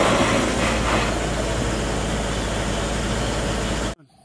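Loud, steady diesel engine noise from heavy machinery, an excavator and its low-loader truck. It cuts off suddenly near the end, leaving a few faint bird chirps.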